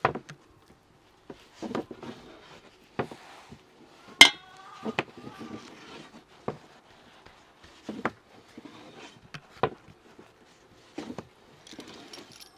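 Metal spoon scraping and knocking on a wooden board as minced meat is spread over thin dough, with one loud ringing clink about four seconds in. After that, hands pat and press the folded dough on the board, giving a few soft knocks a second or so apart.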